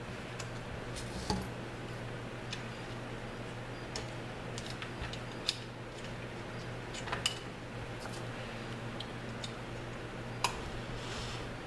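Scattered light metallic clicks and taps of small tools working a trigger guard pin that still sits slightly proud, a dozen or so at uneven intervals, over a steady low hum.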